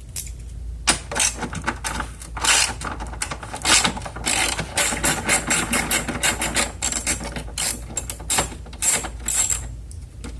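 Hand ratchet wrench clicking in quick runs while a 5/16-inch headlight-assembly bolt is undone. The clicking starts about a second in and stops near the end.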